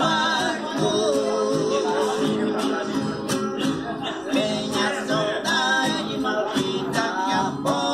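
Two men singing a sertanejo song together, accompanied by a strummed viola caipira and an acoustic guitar.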